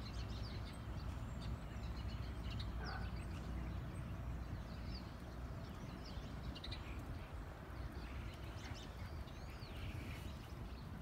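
Outdoor background: a steady low rumble with small birds chirping now and then.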